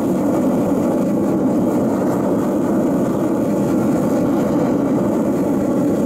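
Homemade furnace built from a spin-dryer casing running hot, its blower forcing air into the flame: a steady, even roar that does not change.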